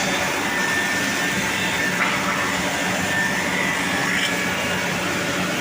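Single rip saw machine running steadily, its motor and blade giving a constant whine with a continuous noisy hiss.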